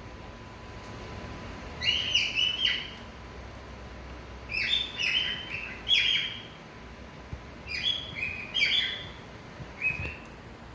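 Male cockatiel singing: four short phrases of whistled chirps, a couple of seconds apart.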